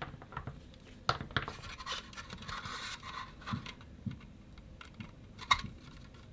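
Multimeter probe tips scraping and clicking against the small wire connector of an 18650 battery cell while its voltage is measured. A rasping scrape runs from about one and a half to three seconds in, with scattered light clicks and one sharper click about five and a half seconds in.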